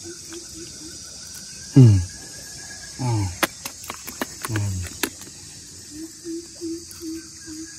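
Steady chorus of crickets and other insects, with a pulsing call repeating about three times a second near the start and again near the end. Three short falling vocal calls cut across it, the first the loudest, along with a run of sharp clicks in the middle.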